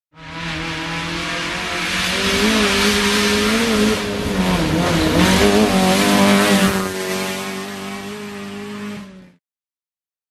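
Proton Satria rally car driving past on a dirt road, its engine revving with the pitch rising and dipping, louder toward the middle and then fading. The sound cuts off about a second before the end.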